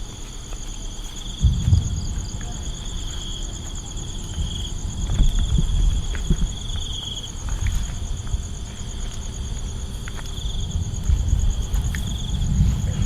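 Insects chirring steadily in two high, finely pulsing trills, over a loud, uneven low rumble.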